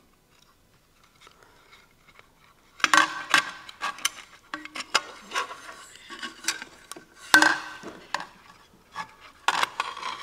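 Metal clinks and scrapes of a Rockwell 368 circular saw's aluminium lower blade guard and its return spring being worked by hand onto the saw's housing. Quiet for about the first three seconds, then a run of sharp clanks and clicks, loudest about three seconds in and again about seven seconds in.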